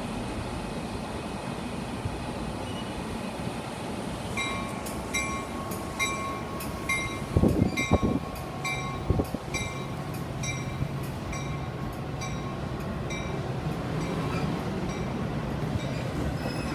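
Metra bilevel commuter train pulling out of the station, its bell ringing about twice a second over the low rumble of the train. A few low thumps come about halfway through.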